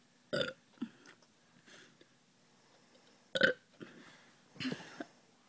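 A person burping: a few short, separate burps, the loudest about three and a half seconds in.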